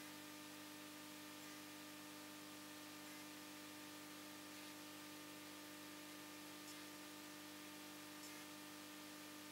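Near silence: room tone with a faint steady hiss and a low electrical hum.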